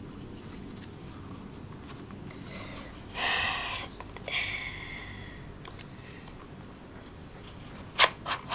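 Hands handling toys: a rustling scrape about three seconds in, a short squeak just after it, and three sharp clicks in quick succession near the end, the loudest sounds.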